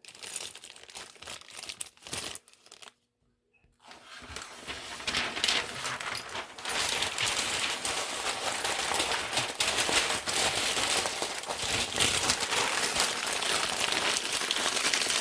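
Packing paper crinkling and rustling as it is handled and crumpled into a shipping box, dropping out briefly about three seconds in, then continuing denser and louder.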